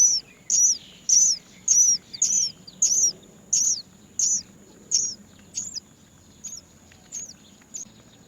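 Great myna nestlings giving shrill, repeated begging calls, a little under two a second, which grow fainter from about five seconds in.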